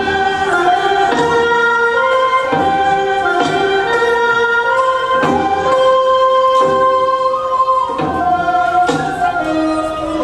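Music with singing: a slow melody of long held notes.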